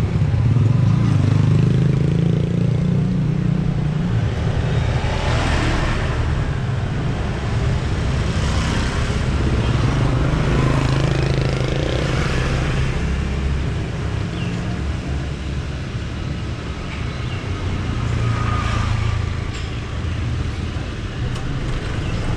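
Road traffic: a steady low rumble with several vehicles passing one after another, each swelling and fading away.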